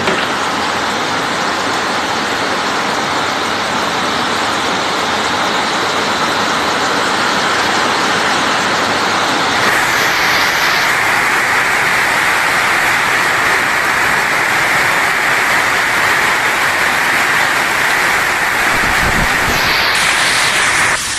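Heavy hail and rain pouring down in a hailstorm, a loud, dense, steady hiss. The sound changes suddenly about ten seconds in, and there are a few low thumps near the end.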